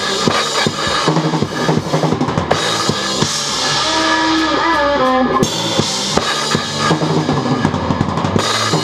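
Acoustic drum kit played along with a recorded rock song: kick, snare and cymbal hits over guitar and other pitched parts, with a falling slide about halfway through.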